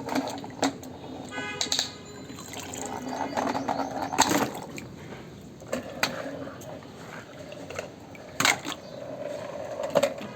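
Water splashing and running as plastic toy vehicles are washed by hand, with a few sharp knocks and clatters of plastic, the loudest about four seconds in and again near the end.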